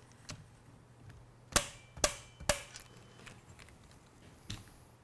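Click-type inch-pound torque wrench on a half-inch socket: three sharp clicks about half a second apart, about a second and a half in, as the optic mount's nut reaches the set 65 inch-pounds, with a few faint ticks of tool handling.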